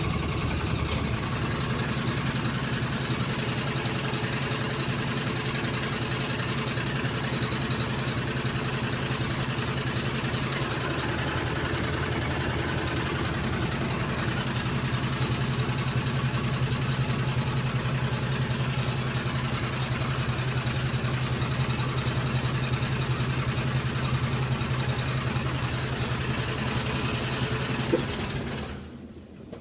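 Washing machine running with a loud shaking noise: a steady mechanical drone with a hum under it. Near the end there is a click, and the noise then falls away sharply.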